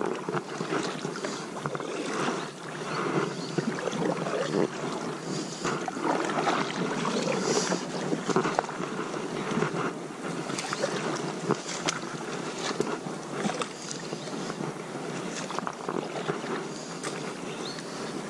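Kayak paddle strokes, the blades splashing and swishing through water matted with floating weeds, with irregular surges and small knocks.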